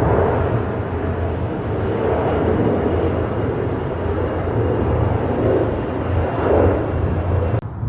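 Jet airliner engines running loud and steady, with a faint high whine over the noise. The sound dips briefly near the end.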